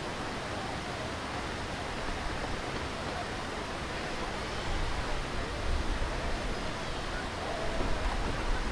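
Steady rush of white water pouring over a broad river weir, with low gusty rumbles coming and going in the second half.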